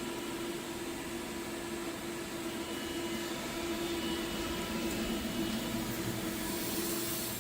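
Haas VF-2SS vertical machining center powered up and running, giving a steady machine hum with a constant mid-pitched tone over a low rumble; a high hiss grows near the end.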